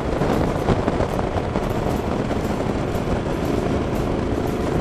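Motorcycle riding at highway speed, heard from a helmet-mounted action camera: a steady rush of wind over the microphone mixed with the rumble of the engine and tyres.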